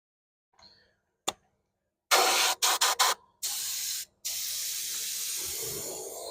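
Paint spraying onto a wheel: a sharp click, then several short hissing bursts followed by a longer steady spray.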